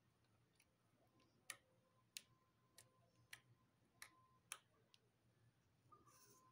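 Faint, sharp sticky clicks from a brush pressing lipstick into slime and pulling back out, about six of them roughly half a second apart, in near silence.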